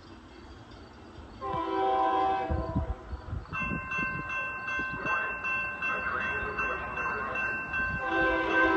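An approaching train's horn sounds a chord of several notes for about a second, then grade-crossing warning bells start ringing and keep on steadily; the horn sounds again near the end as the train nears.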